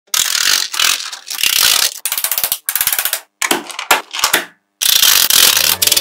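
Dense clicking and rattling of many small magnetic balls as a plastic card is slid between layers of a magnet-ball build, splitting off sheets of balls. It comes in bursts of rapid clicks with brief pauses between them.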